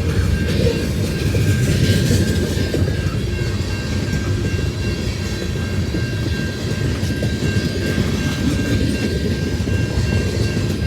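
Freight cars of a passing mixed freight train rolling by on wet track: a steady low rumble of wheels on rail, with a faint steady high whine running through it.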